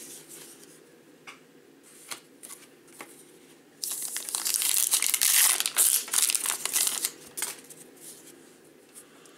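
Crinkly wrapper of a Topps Gypsy Queen baseball card pack being torn open and crumpled, loud for about three seconds starting a little under four seconds in. Light clicks of cards being handled before and after.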